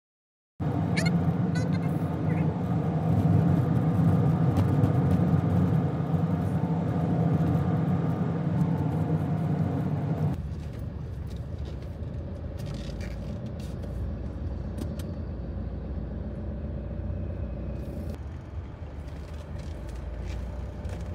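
Motor vehicle running with road noise, steady and loud at first, then cutting about ten seconds in to a quieter steady rumble.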